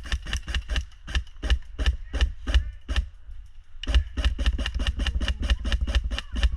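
Airsoft gun firing a rapid string of sharp shots, about four a second. After a short pause about three seconds in, a faster burst follows at about seven shots a second.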